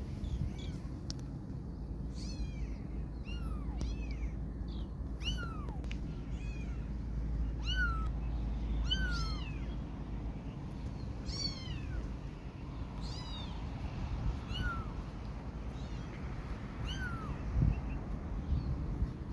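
A young kitten meowing over and over: about a dozen short, high-pitched cries, each falling in pitch, one every second or two, over a steady low background rumble.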